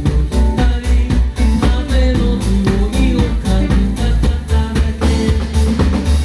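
Live band music: drums keep a steady beat over a deep, continuous bass line, with pitched instruments playing above.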